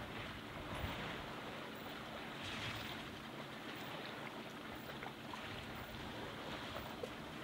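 Muddy water sloshing and splashing as elephants move and wallow in a mud pool, over a steady outdoor hiss, with a few brief louder splashes about a second in and near the middle.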